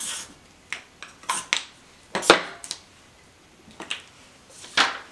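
Scattered light clicks, short rustles and small knocks of handling, the loudest a sharp knock a little past two seconds in: a makeup product and the paper game sheet being handled.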